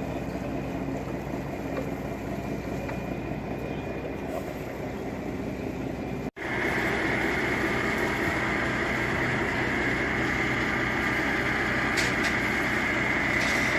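A heavy vehicle engine running steadily. About six seconds in the sound cuts to a louder stretch, with a steady high whine over the engine.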